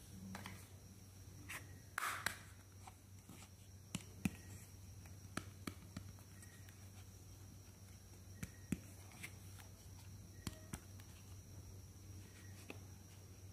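Small plastic toy makeup compacts handled and set down on a table: scattered light clicks and taps, several in quick pairs, over a low steady hum.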